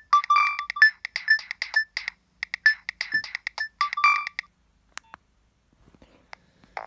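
Preloaded ringtone playing on a Nokia 7250i mobile phone: a fast run of short, staccato electronic notes that stops about four and a half seconds in. Two clicks follow in the gap, and the next ringtone starts right at the end.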